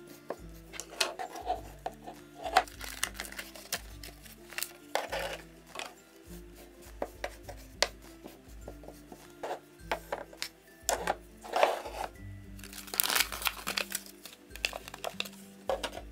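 Plastic toy knife tapping and scraping on a small wooden cutting board, with soft rustling as cloth toy lettuce leaves are handled, in many short irregular clicks. Background music plays under it.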